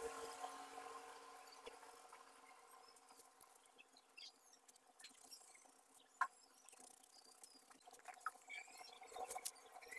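Faint scratching of an oil pastel crayon rubbing on paper, with scattered light clicks, one sharper click about six seconds in, and a few short chirps near the end.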